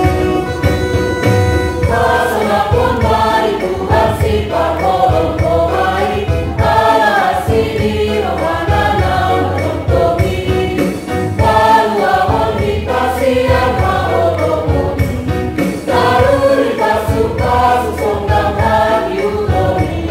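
A choir singing a Batak Toba hymn over instrumental backing with a steady low beat. The voices come in about two seconds in, after a short instrumental lead-in of held chords.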